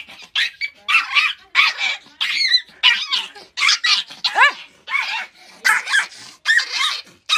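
Dog barking and yipping over and over, about three high-pitched yaps a second, with one longer falling yelp midway.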